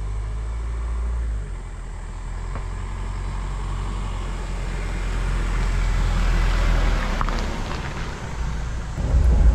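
Toyota Land Cruiser 70's engine running as the truck drives slowly, a low steady rumble that grows louder toward the middle.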